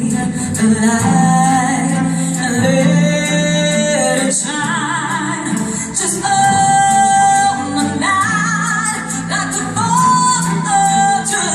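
Pop song played by a symphony orchestra with a band, a female lead voice singing over the accompaniment.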